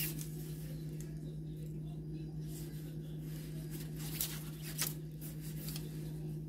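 Faint rustling and a few soft clicks of netting twine and a wooden netting stick being handled while cast-net meshes are tied, over a steady low hum.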